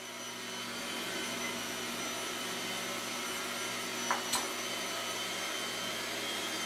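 Electric mixer running steadily, beating dry ingredients and milk into a cake batter, with two short knocks about four seconds in.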